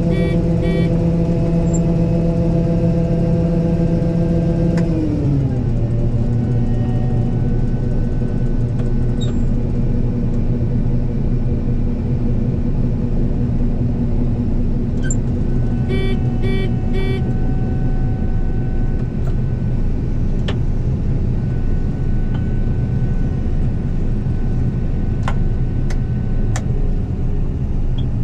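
Combine harvester running steadily with a low engine hum. About five seconds in, its pitch slides down and holds at a lower level. A few short electronic beeps sound at the start and again midway.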